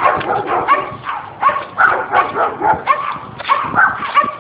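A dog barking over and over, about three short barks a second.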